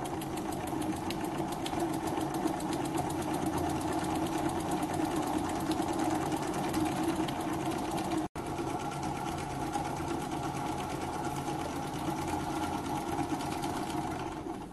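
Small single-cylinder oscillating (wobbler) model steam engine running steadily on steam from a little methylated-spirits-fired boiler, a fast, even chuffing clatter. It breaks off briefly about eight seconds in, and the level drops near the end as the steam valve is turned off.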